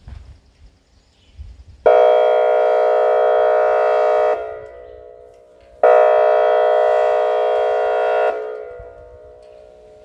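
Whelen WPS-2802 electronic outdoor warning siren sounding two loud steady-pitched blasts, each about two and a half seconds long, starting and stopping suddenly, with the sound echoing away after each.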